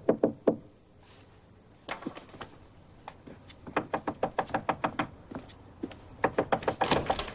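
Knuckles rapping on a wooden door: a quick knock of about four raps at the start, then more knocking in quick runs of raps in the middle and near the end.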